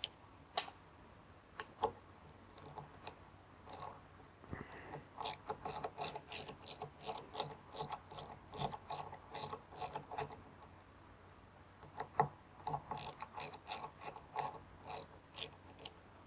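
Hand socket ratchet wrench clicking in quick, even runs of about three clicks a second as it backs screws out of a reciprocating saw's gear housing. Two long runs, after a few scattered knocks at the start.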